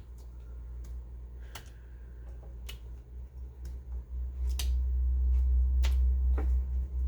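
About six sharp clicks or snaps at irregular intervals, over a low steady hum that gets louder about four seconds in.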